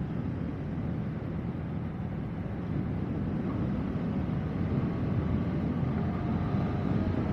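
Suzuki Gixxer single-cylinder motorcycle running at cruising speed, its engine mixed with wind and tyre noise, getting slightly louder in the second half.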